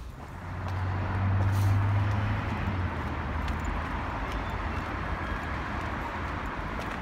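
Outdoor road-traffic noise, steady and rumbling, with a louder low drone swelling for the first couple of seconds before settling.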